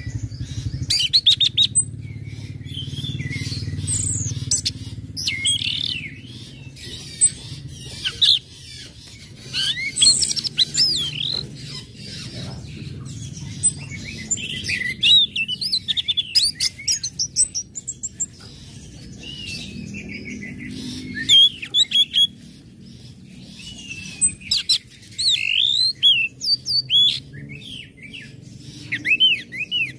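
Orange-headed thrush (anis merah) singing a fast, varied run of sharp chirps, whistles and short trills, over a low steady hum that is stronger in the first few seconds.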